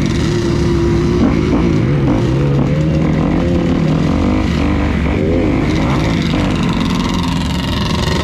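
Off-road vehicle engines running and revving, their pitch rising and falling, with more than one engine heard at once.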